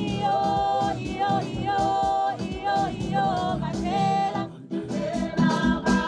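A woman singing a short chorus phrase over and over, with held notes, over a backing track with percussion.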